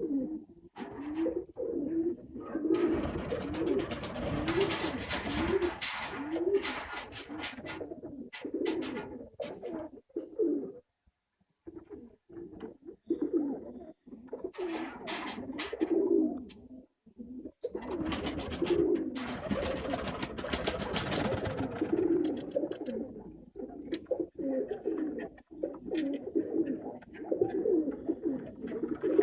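Domestic pigeons cooing over and over in low, repeated phrases, with two longer stretches of rustling noise, one a few seconds in and one past the middle.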